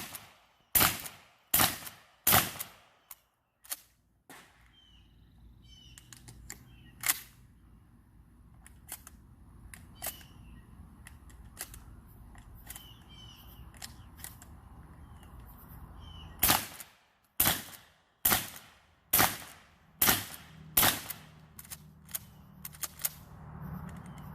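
Suppressed Mossberg 590 12-gauge pump-action shotgun firing 00 buckshot, shots coming about a second apart: a string of about five shots, a pause of about twelve seconds with only faint clicks and a low hum, then another fast string of shots.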